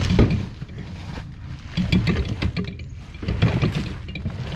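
A heavy deep freezer hauled on a hand truck over wet ground: three heavy low bumps about a second and a half apart, with clattering between them.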